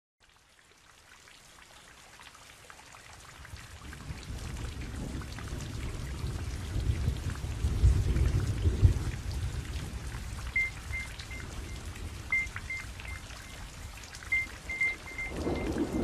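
Steady rain falling, fading in over the first few seconds, with a low rumble of thunder around the middle. From about two-thirds of the way in, short high electronic notes start to blip over the rain.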